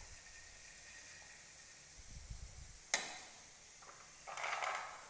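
Cornflour-coated sweet corn kernels frying in oil, a faint steady sizzle, with one sharp metal clink of the slotted skimmer about three seconds in. Near the end a short rustling burst as the skimmer tips the fried corn onto paper towel.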